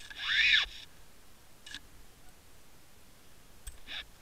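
Underwater handling noise from a fishing-line camera rig brushing through kelp: a short squeak that rises and falls in pitch in the first second, then a few sharp clicks.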